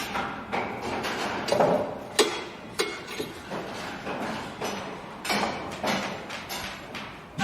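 Building construction site noise: irregular knocks, bangs and clanks of tools and materials, about one or two a second, with a sharp louder hit about two seconds in.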